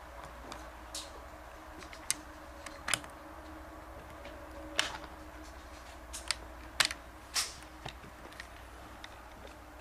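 Irregular sharp clicks and light taps, about ten of them, over a faint low steady hum.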